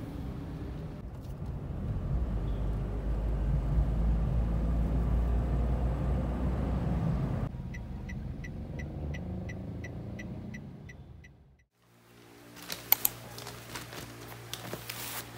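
Low rumble of a car's engine and road noise heard inside the cabin. It changes after about seven seconds to a steady ticking about four times a second. Near the end comes a low steady hum with a few sharp clicks.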